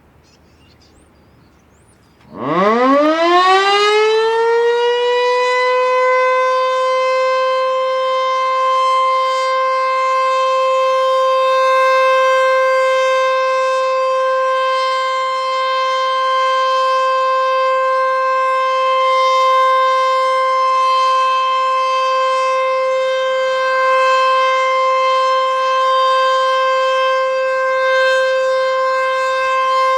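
Sentry 14V-B electromechanical tornado warning siren starting up about two seconds in: its pitch winds up over three or four seconds, then holds one loud, steady tone, the full alert signal.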